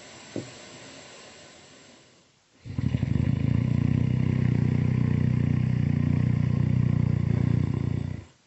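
Cartoon-style snoring, really loud: a quieter breath with a small click, then from about three seconds in one long, low, buzzing snore that lasts over five seconds and cuts off near the end.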